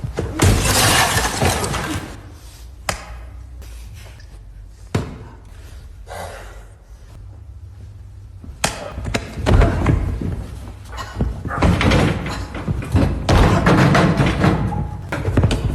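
Fight-scene sound effect of hard punch and kick impacts: a flurry of blows at the start, single sharp hits about 3, 5 and 8.5 seconds in, then a long dense flurry of blows from about 9 seconds on, over a steady low hum.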